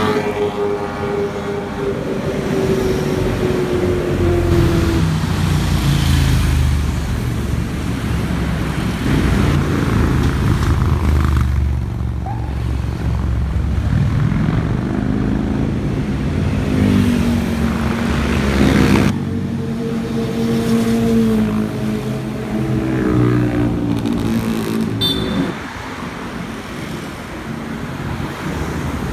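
Motorcycle engines passing one after another on a road, with sudden changes between them. First a Kawasaki inline-four sport bike running past, its engine note falling in pitch. Then big Harley-Davidson V-twin touring bikes, and later more bikes revving past with the pitch rising and falling, over passing car traffic.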